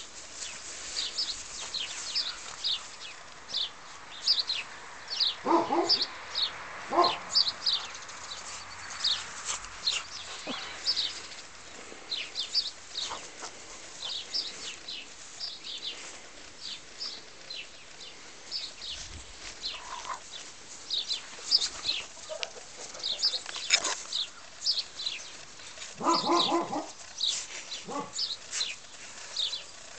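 Tibetan mastiff puppies at play, giving a few short yips and whines. Birds chirp quickly and continually behind them.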